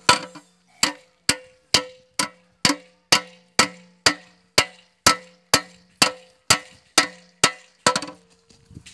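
Small hammer striking an aluminium patch nailed over a leak hole in the bottom of an upturned metal cooking pot (dekchi), about two blows a second, each leaving a short metallic ring from the pot. The blows stop shortly before the end.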